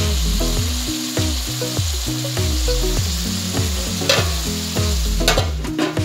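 Eggplant cubes sizzling as they fry in oil in a pot, with a few metallic clinks near the end as the lid goes on. Background music with a repeating bass line plays throughout.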